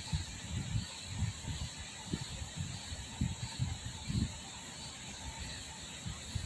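Pen writing cursive on paper: soft, irregular low bumps from the pen and hand working on the page, over a steady hiss.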